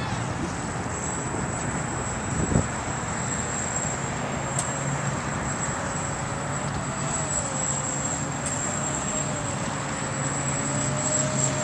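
Fast RC boat's motor running at a distance as it circles the pond, its pitch wavering up and down, over a steady rushing noise. A single thump about two and a half seconds in.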